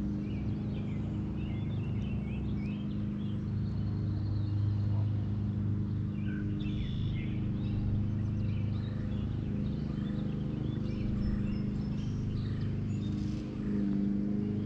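Birds chirping on and off over the steady low drone of a motor.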